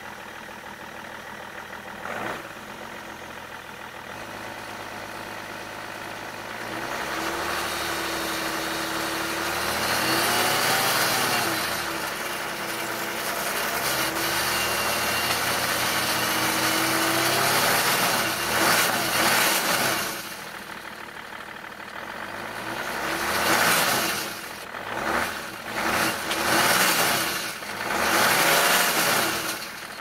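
A 2005 BMW 525d's straight-six turbodiesel idling, then revved: it climbs slowly about a quarter of the way in and holds higher revs for several seconds, gives two short blips, drops back to idle, and near the end is revved four times in quick succession. The engine has a broken cylinder head gasket.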